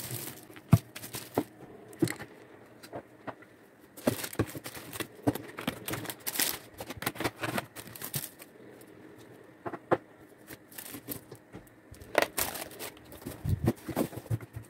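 Plastic wrapping and clear cellophane bags crinkling and rustling as packaged cosmetics are handled in and out of a cardboard box, with scattered light taps and knocks of items being set down.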